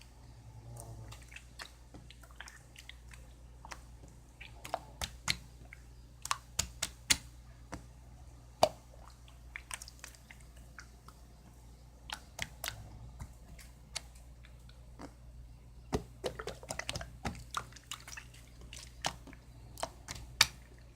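Irregular sharp clicks and taps, unevenly spaced and sometimes in quick clusters, over a steady low hum.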